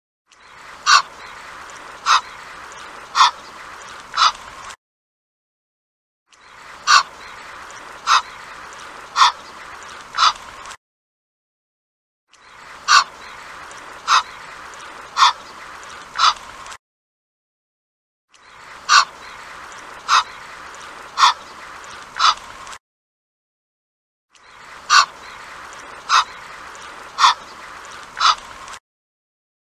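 Egyptian goose calling: groups of four short, sharp calls about a second apart, the group repeated five times with brief silent gaps between.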